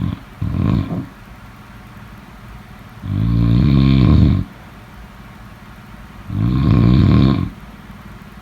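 Snoring: two short snores at the start, then two long snores about three seconds apart, each lasting over a second.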